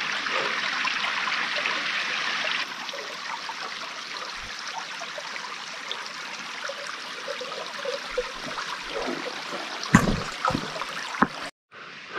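A small mountain stream running steadily, its rushing noise dropping in level about three seconds in. A few short knocks come near the end, and then the sound cuts off abruptly.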